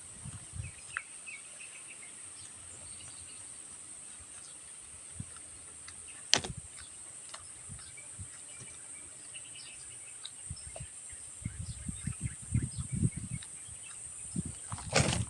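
A steady high-pitched chirring of crickets or other insects, under close-up eating noises: one sharp click about six seconds in, and a run of soft low chewing sounds near the end.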